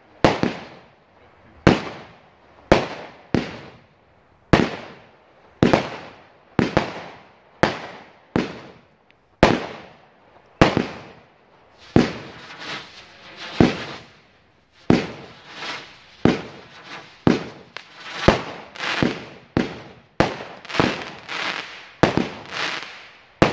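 Brightstar 'Wrath of the Gods' single-ignition firework cake firing shot after shot, each sharp bang trailing off in a short fading tail. About one shot a second at first, coming quicker and closer together through the second half.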